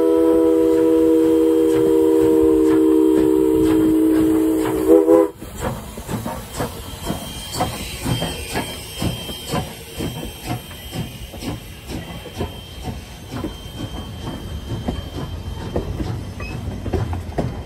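Steam locomotive whistle sounding a long blast of several tones at once, cut off about five seconds in. After it, the double-headed steam train runs past with a rhythmic beat of about two strokes a second.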